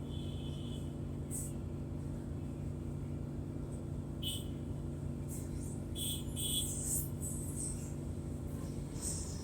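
Mercedes-Benz O500MDA articulated bus's Euro III diesel engine running at a steady speed, with brief high-pitched sounds now and then, a cluster of them about six to seven seconds in.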